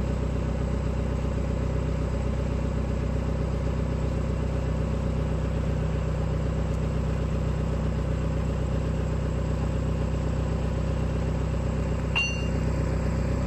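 SKG940A crawler drill rig's diesel engine running steadily while the drill mast is hydraulically lowered. A single short metallic clink rings out near the end.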